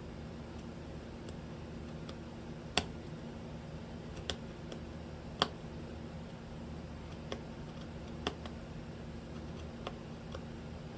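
Hand tools cutting into wood during carving: a few sharp, irregularly spaced clicks and taps, the loudest about three and five and a half seconds in, over a steady low hum.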